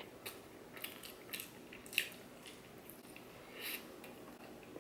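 Close-miked eating sounds: a person chewing food with her mouth near the microphone, heard as a handful of short, faint, wet bursts, the loudest about two seconds in.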